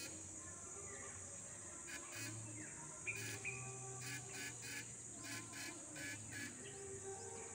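Riverside ambience: a steady high-pitched insect drone with scattered bird chirps. From about halfway, a faint, evenly repeating ticking pattern comes in and carries on.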